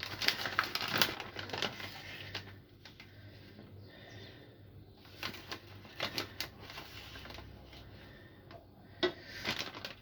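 A spoon scooping cornstarch and clicking and scraping against its container, in irregular bursts of small taps.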